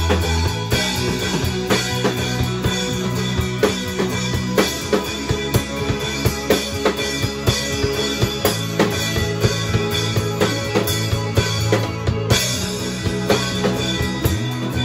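Live band playing: a Ludwig drum kit keeps a steady beat of kick and snare under held electric bass notes, with keyboard and guitar. The bass drops out for a few seconds in the middle while the drums carry on.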